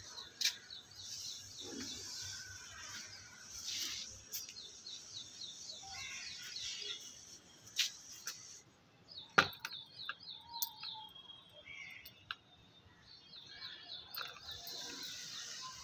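A small bird singing repeated runs of quick, short chirps, several times over. A few sharp clicks come in between, the loudest about nine seconds in.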